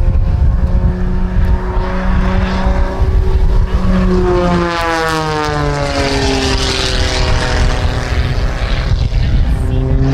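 Propeller-driven aerobatic plane's engine droning through its manoeuvres, its pitch sliding down around the middle and then holding steady. Wind rumble on the microphone runs under it.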